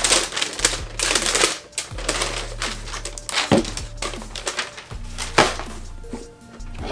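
Tissue paper rustling and crinkling as it is handled and pulled out of a shoebox, in irregular loud swishes.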